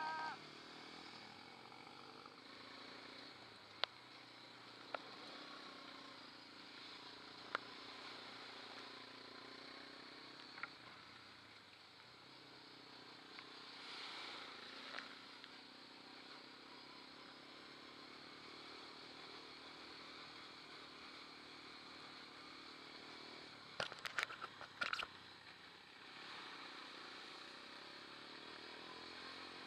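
Quad ATV engine running steadily as the bike rides a rough, wet dirt trail, with a few sharp knocks and a short cluster of rattles near the end as it goes over bumps.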